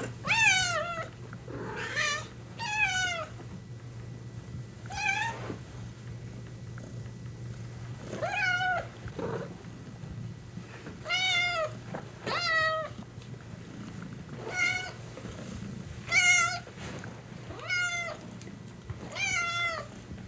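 Young cat meowing repeatedly: about a dozen short meows, each falling in pitch, coming every second or two with a longer pause about six seconds in. A steady low hum runs underneath.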